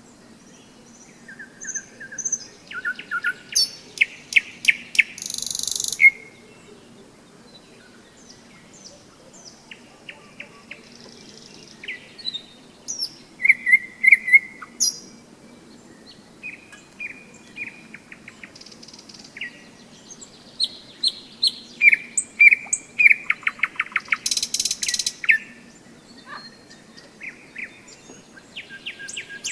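Nightingale singing: loud phrases of rapidly repeated clicking notes, clear whistles and harsh rattles, in several bursts separated by short pauses.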